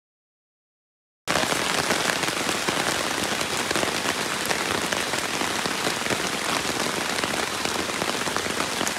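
Silence for about the first second, then rain comes in suddenly and falls steadily.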